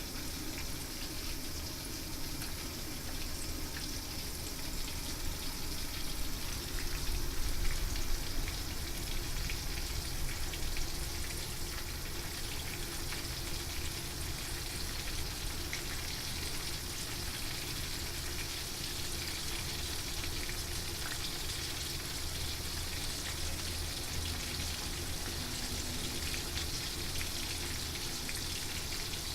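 Horse mackerel frying in hot oil, a steady sizzle that swells a little for a moment about a quarter of the way in.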